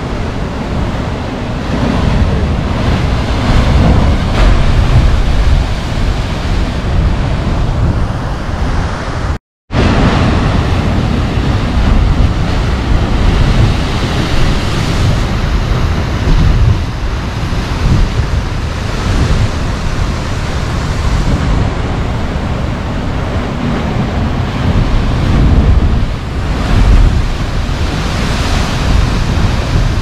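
Heavy ocean surf surging and crashing into a narrow basalt rock chasm, rising and falling with each wave, with a deep wind rumble on the microphone. The sound cuts out completely for a moment about nine and a half seconds in.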